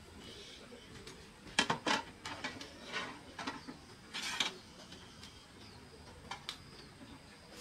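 Cookware and utensils knocking and clattering as they are handled: a cluster of sharp clatters from about one and a half to three and a half seconds in, another just past four seconds, and two small ticks near six and a half seconds.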